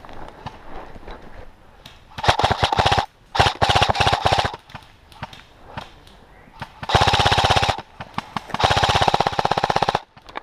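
Airsoft electric rifle, an Umarex HK416D AEG, firing four full-auto bursts of about a second each, a rapid even rattle of shots.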